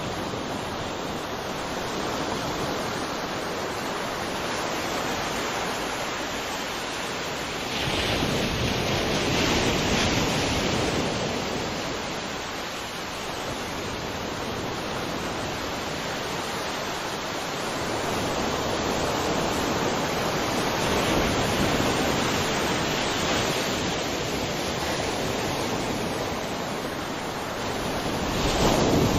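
Ocean waves breaking on a shore: a continuous rushing wash of surf that swells with each breaking wave, about three times, roughly ten seconds apart, the strongest near the end.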